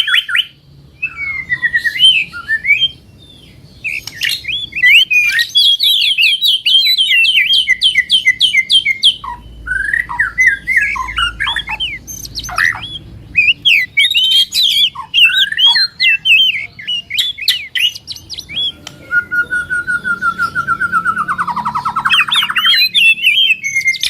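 Songbirds singing in a continuous stream of rapid, varied chattering trills and chirps, with a lower drawn-out whistled phrase near the end.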